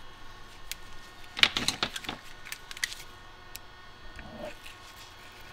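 A thin metal scraper clicking and scraping against the four-wheel-drive actuator flange of an axle housing as a gasket is pried off. There is a cluster of short clicks and scrapes about a second and a half in, then a few lighter ticks.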